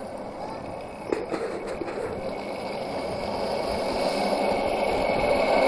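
Zipline trolley wheels running along the steel cable, a whirring hiss with a faint high whine that grows steadily louder as the rider gathers speed, with a few light clicks in the first two seconds.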